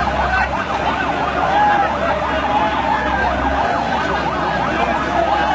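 Emergency vehicle siren sounding with a fast rising and falling pitch, over the shouting and babble of a large crowd.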